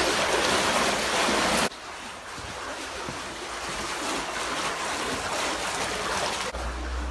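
Churning, rushing floodwater, loud for about the first second and a half, then cutting abruptly to a quieter, steady rush. A low rumble comes in near the end.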